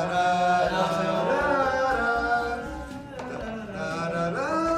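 A group of male voices singing together, holding long drawn-out notes.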